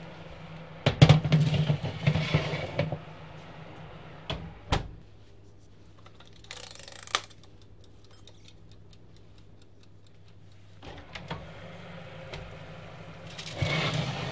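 Clattering and knocks of a baking tray and oven door as the dough parcel goes into the oven: a loud burst of clatter about a second in, two more knocks a little later, and further handling near the end, over a steady low hum.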